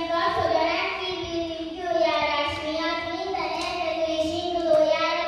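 Children singing, with long held notes.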